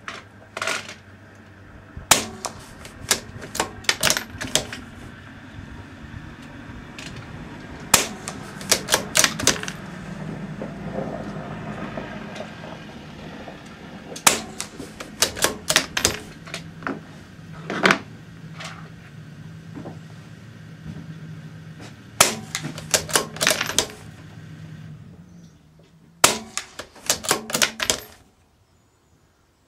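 Suppressed .22 LR bolt-action rifle firing subsonic rounds: quiet, sharp reports, each with a run of metallic clicks from the bolt being worked. These come in several separate groups a few seconds apart.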